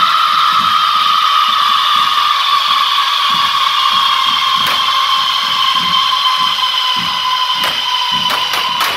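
Many pole-mounted carretilles (correfoc firework fountains) burning together, a loud shrill hissing whistle that slowly sinks in pitch. A faint low beat runs underneath. A few sharp bangs crack out about five seconds in and several more near the end as the fireworks burst.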